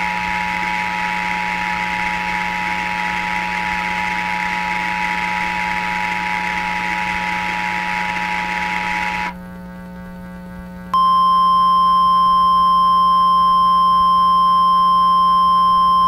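Emergency Alert System two-tone attention signal: two steady tones sounding together over hiss for about nine seconds. After about a second and a half of gap, a single steady, louder tone begins about eleven seconds in; this is the NOAA Weather Radio 1050 Hz warning alarm tone. A low steady hum sits underneath.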